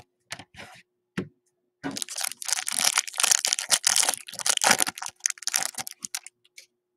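Foil wrapper of a Topps Chrome trading-card pack being torn open and crinkled: a few light clicks at first, then about four seconds of dense crinkling and tearing.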